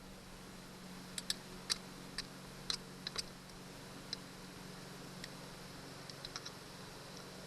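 Scattered sharp light clicks and taps, about a dozen at uneven intervals, clustered in the first half, from small hardware and hand tools being handled during a transducer mounting job, over a steady low hum.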